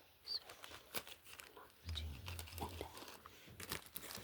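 Packaging crinkling and rustling as it is handled, with many irregular small crackles and clicks and a low handling rumble around two seconds in.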